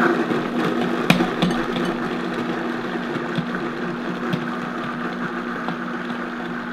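Vitamix A3500 blender motor starting up abruptly and running steadily at speed, chopping cauliflower, red cabbage and carrots in the container, with a few sharp knocks of the tamper among the vegetables.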